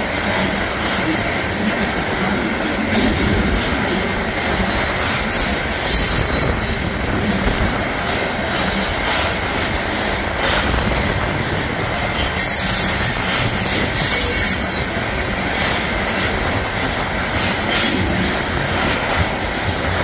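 Loaded-style coal gondola cars of a freight train rolling steadily past at close range, steel wheels rumbling and clacking over the rails and crossing, with a steady high wheel squeal and brief flares of sharper screech every few seconds.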